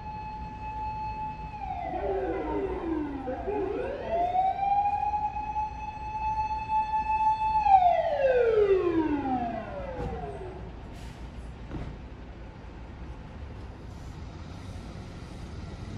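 Japanese fire engine siren blaring as the truck arrives. It holds a high wail, drops in pitch and winds back up, holds high again, then winds down and stops about ten seconds in. After that the vehicle's engine keeps running.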